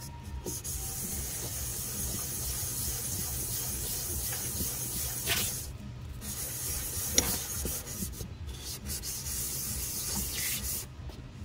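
Aluminium brake master cylinder of a 1985 Yamaha VMax being wet-sanded face down on 600-grit sandpaper in circular strokes: steady gritty rubbing, with short breaks about six seconds in and near the end. The sanding takes rust off the gasket face so that it seals without leaks.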